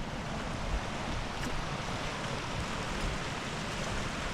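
Steady noise of wind and rain, with gusts buffeting the microphone.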